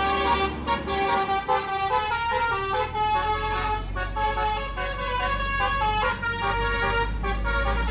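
Tour bus's musical 'basuri' telolet air horn playing a melody, several horn tones together stepping quickly from note to note, over the low rumble of the bus engine.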